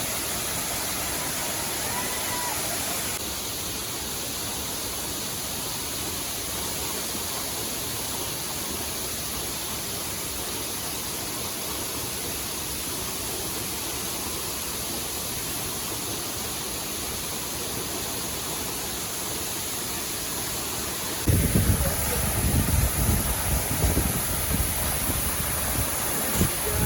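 Cikaso Waterfall's steady rush of falling water. About three-quarters of the way through, a loud, gusty low rumble sets in over it.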